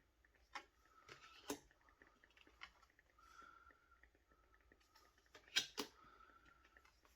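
Tarot cards being handled, quietly: soft taps and card clicks, the loudest a quick pair about five and a half seconds in.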